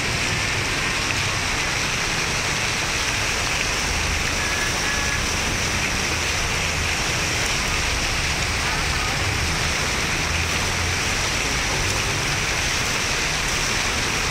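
Fountain water jets falling and splashing into the pool: a steady, unbroken rush of water.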